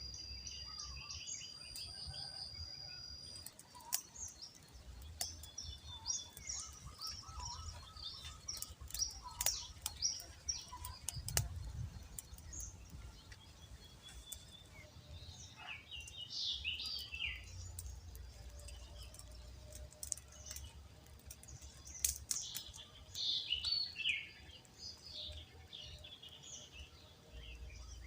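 Birds chirping and calling outdoors: many short, high chirps with a few falling notes, over a low rumble.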